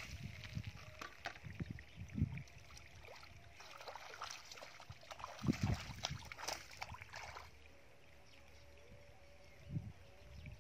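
Shallow muddy water splashing and squelching in scattered bursts as a person moves barefoot through a drained mud pool, with a few dull thuds of feet and mud.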